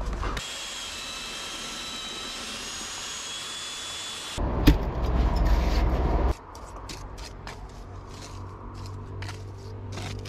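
An electric SDS drill with a paddle mixer running with a steady whine, then a louder low churning for about two seconds as it beats stiff lime mortar. About six seconds in it gives way to a steel pointing trowel scraping and clicking lime mortar off a hawk, in short strokes.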